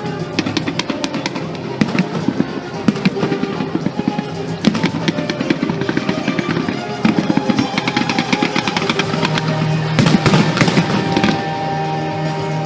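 Fireworks bursting and crackling in quick succession over music played along with the display, with a dense flurry of crackles about ten seconds in.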